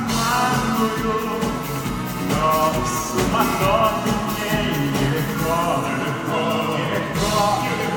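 A voice singing a song over instrumental accompaniment.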